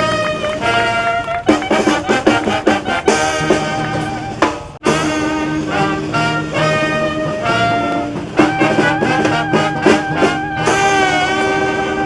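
Music: brass instruments playing held notes over drums keeping a beat.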